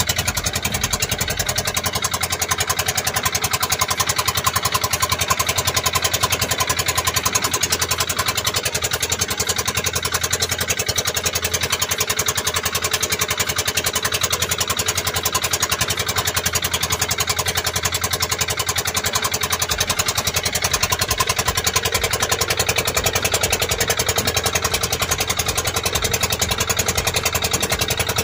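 Small engine of a motorized outrigger boat (bangka) running steadily under way, with a rapid, even beat.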